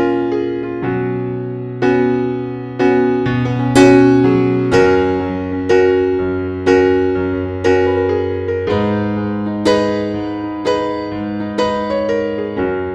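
Background piano music: struck notes and chords about once a second, each fading, over held bass notes.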